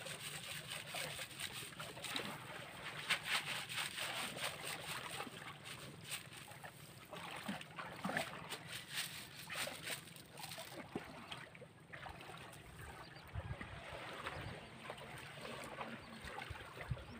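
Water sloshing and splashing irregularly, with small trickles and splashes.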